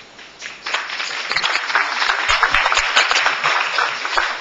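Audience applauding, the clapping starting about half a second in and swelling quickly to a full round.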